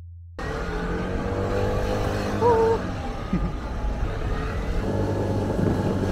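Motor scooter running while being ridden, heard from on board with steady engine, wind and road noise. It cuts in abruptly, and a brief pitched tone sounds about two and a half seconds in.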